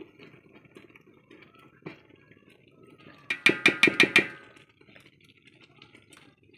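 Aluminium pot knocked and scraped against the rim of an aluminium cooking pot: a quick run of about seven ringing metal clinks about three seconds in, as the last of the batter is emptied out, with faint stirring and handling sounds around it.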